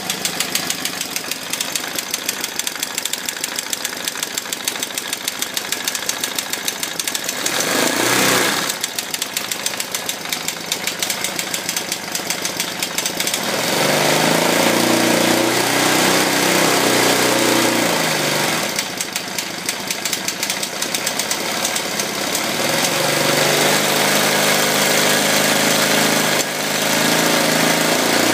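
KTM 640 LC4 single-cylinder four-stroke engine idling with a clicking from a faulty automatic decompressor. It is blipped once about eight seconds in and twice held at higher revs, when the clicking goes away.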